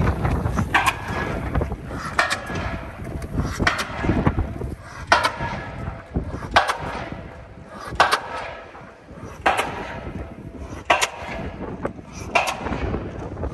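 Pile driver hammering a pile at a steady pace: sharp, ringing strikes about every second and a half.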